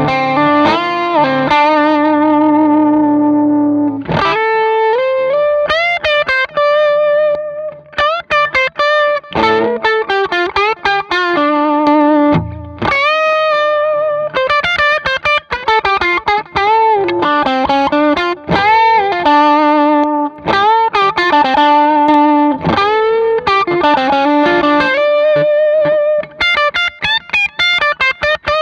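Gibson Les Paul electric guitar played through a JHS Whitey Tighty compressor pedal, switched on, into a Vox AC30 amp. A chord rings out and fades over the first few seconds, then a lead line of single notes follows with string bends and vibrato.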